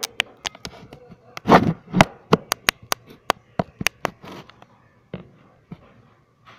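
Toothbrush scrubbing teeth in quick back-and-forth strokes, about five a second, with two louder rubs about a second and a half and two seconds in; the strokes fade out after about four and a half seconds.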